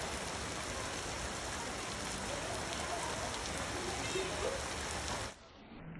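Heavy rain pouring down as a steady, even hiss that cuts off suddenly near the end.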